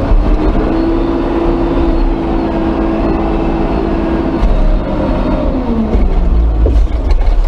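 Front loader's diesel engine running hard under load, heard from the cab. Its note holds high for about four seconds, then sinks as the revs drop off.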